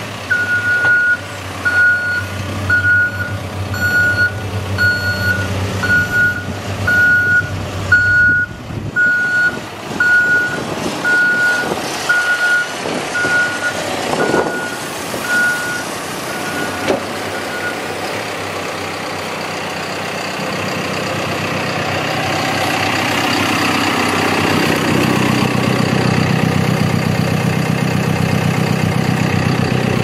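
CAT 420F backhoe loader's diesel engine running while its reversing alarm beeps about once a second. The beeping stops about 18 seconds in, and near the end the engine runs louder.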